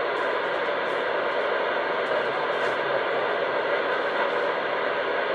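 Steady, even hiss of CB radio static from an open receiver, with no voice on the channel.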